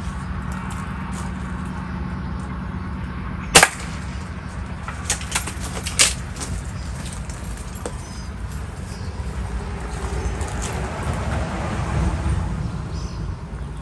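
One sharp, loud pellet-gun shot about three and a half seconds in, followed by a few lighter clicks a couple of seconds later, over a steady low rumble.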